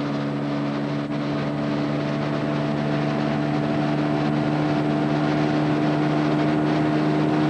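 Boat motor running steadily at cruising speed as the boat travels up the river, a constant even hum with water and wind noise underneath.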